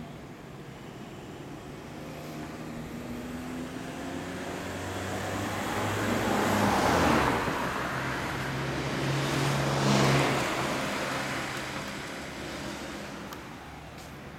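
Road traffic: two vehicles drive past one after the other, each sound swelling and fading away, loudest about seven and ten seconds in.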